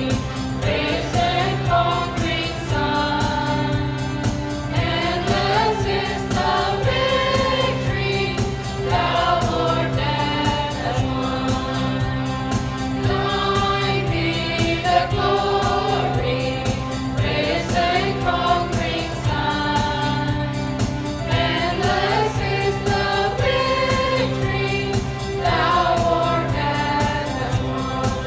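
Mixed choir of adults and children singing a Christian song together, with electronic keyboard accompaniment holding steady low notes beneath the voices.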